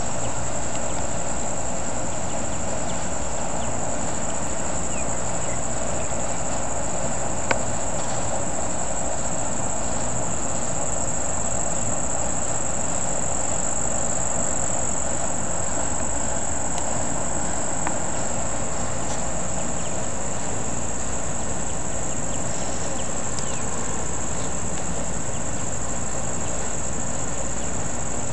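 Steady, high-pitched insect chorus over a low background rumble, with a single sharp click about seven and a half seconds in.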